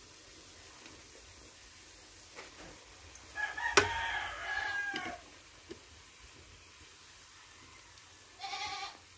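A rooster crowing once, a call of under two seconds that drops in pitch at its end, with a sharp knock in the middle of it. A brief second call from the fowl comes near the end.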